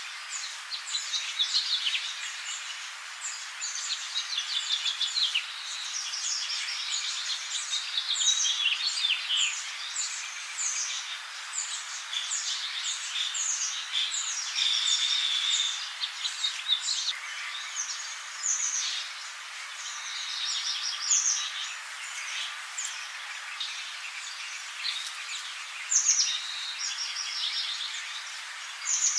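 A dense chorus of many birds chirping and trilling over a steady background hiss of forest ambience.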